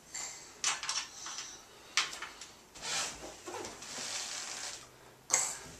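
Scattered light clicks and scrapes of a hand tool working a bolt on a wooden crib leg, with a sharper click near the end.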